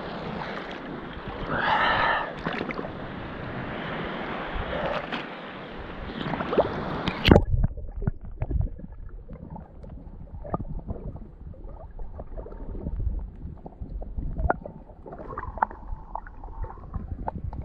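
Sea water sloshing and gurgling around the camera, with wind on the microphone. About seven seconds in there is a sharp knock, and after it the sound turns quieter and muffled, with scattered clicks.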